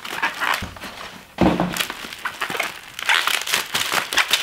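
Plastic bubble wrap crinkling and crackling as a wrapped object is handled, with a dull thump about a second and a half in and denser crackling near the end.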